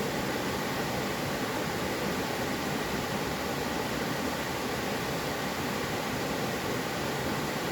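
Mountain stream water rushing steadily over rocks, a constant even rush with no changes.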